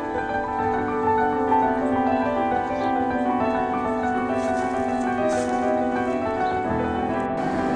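Background piano music: a steady melody of held and moving notes.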